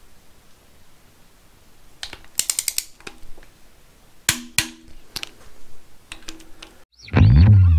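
A torque wrench and socket clicking on ARP cylinder-head bolts as they are torqued to the first 60 lb-ft stage: a quick run of ratchet ticks about two seconds in, then two sharp clicks close together and a few lighter ones. Loud background music comes in near the end.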